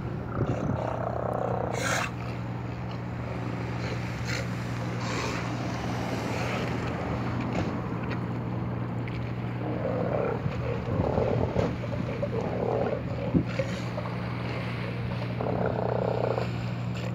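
A colony of South American sea lions calling, with rough calls of about a second each: one near the start, a run of several around the middle, and another near the end. Under them runs a steady low hum.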